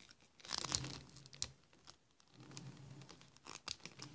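Rustling and crinkling with a few sharp clicks as hands handle plastic toys close to the microphone, in two short spells.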